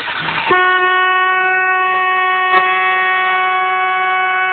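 Car horn sounding one steady, unbroken note, starting about half a second in.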